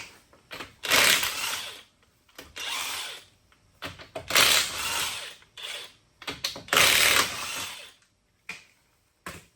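Power tool run in four bursts of about a second each, with short pauses between them.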